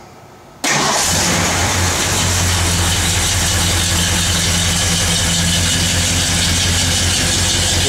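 Ford 352 V8 engine of a 1965 F100 idling steadily. It cuts in abruptly about half a second in. The idle is a little high, with the ignition timing not yet set.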